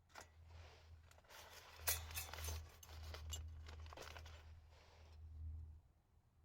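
Crinkling and rustling with several sharp clicks, the loudest click about two seconds in, over a steady low hum.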